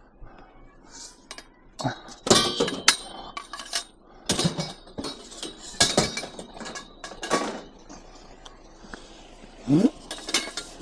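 Scrap metal clanking and rattling in a series of sharp knocks as pieces are handled and loaded.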